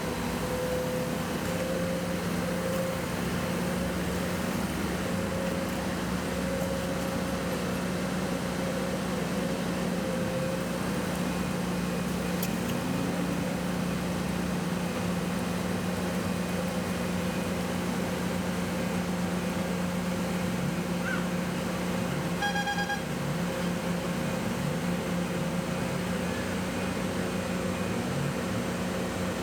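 A heavy engine of construction equipment runs with a steady low hum under continuous traffic noise from the freeway. A brief run of electronic beeps comes about 22 seconds in, and another beep near the end.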